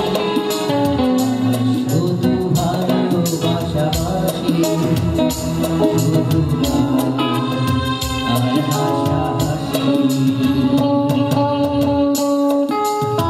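Live band music: a male singer sings a song into a microphone, backed by electric guitar and keyboard over a steady beat.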